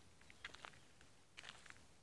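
Faint footsteps crunching on the forest floor, two steps about a second apart, over near silence.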